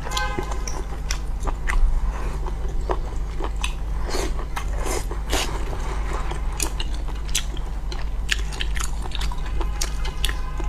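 Close-miked eating: irregular biting and chewing with crisp crunches and wet, squishy mouth sounds, over a steady low hum.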